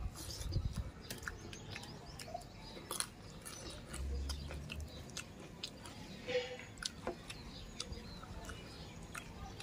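A person eating rice and fish with the hands, close to the microphone: chewing and lip-smacking with many small scattered clicks.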